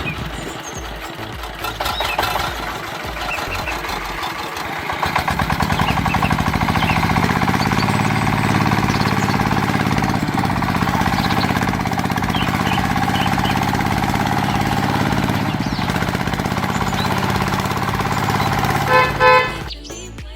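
A motor vehicle's engine running steadily, with two short horn toots near the end.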